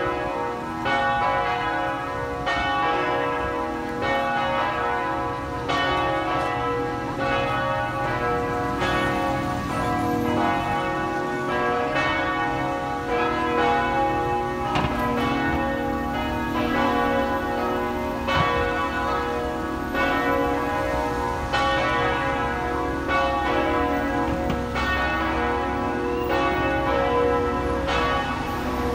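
The Cornille-Havard bells of the Basilica-Cathedral Notre-Dame de Québec (1922–1923, tuned B, C♯, D♯ and a high D♯) ringing together in a continuous run of overlapping strikes. The uploader takes it for the call to mass.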